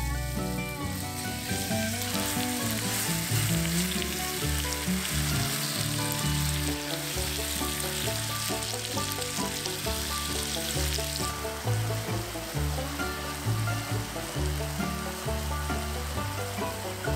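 Banana slices frying in a butter and brown-sugar caramel in a nonstick pan, sizzling steadily, with a spatula stirring them.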